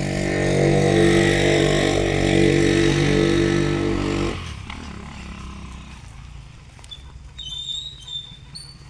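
Motorcycle engine running steadily under load, then dropping off sharply about four seconds in to a much quieter low idle.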